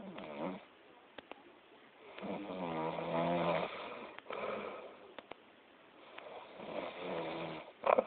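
A sleeping person snoring loudly: several separate snoring breaths with a buzzing, pitched tone, the longest about a second and a half, and a brief, louder burst near the end.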